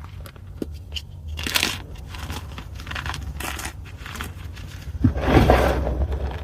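Pieces of gym chalk (magnesium carbonate) being crushed: irregular dry crunches and crumbling crackles, with the loudest, longest crunch about five seconds in.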